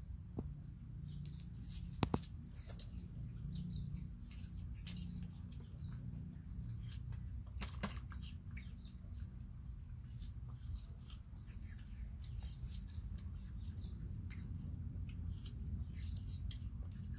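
Macaques eating: scattered small clicks and smacks of chewing and handling food, irregular throughout, with one sharper click about two seconds in, over a steady low hum.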